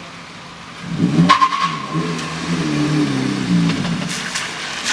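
Car engine accelerating: it comes up loudly about a second in and rises in pitch, then drops back near the end.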